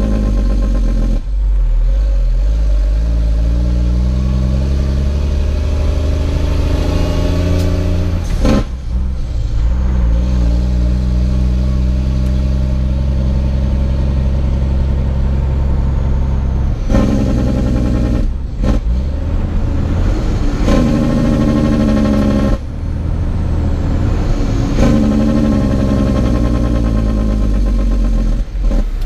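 Semi truck's diesel engine heard from inside the cab, pulling through the gears of an 18-speed manual transmission. The engine note climbs as it pulls, then drops out briefly at each shift, several times.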